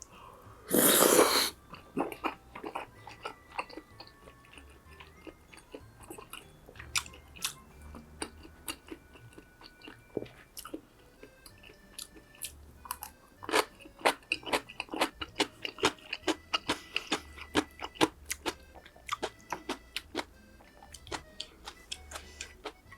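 Close-miked eating: bites and crunchy chewing of crisp fried food, with sharp crackles that grow dense through the second half. About a second in comes one loud, half-second crunching burst, the loudest sound here. Soft background music plays underneath.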